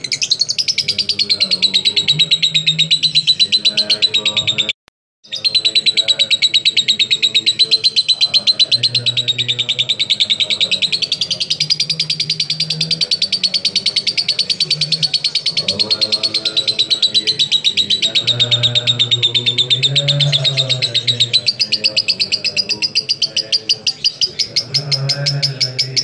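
Lovebird in continuous 'ngekek': a long, fast chattering trill of rapid high notes, pulsing several times a second and held on with hardly a pause. This is the nonstop 'konslet' style of ngekek. It cuts out for about half a second around five seconds in, then carries on.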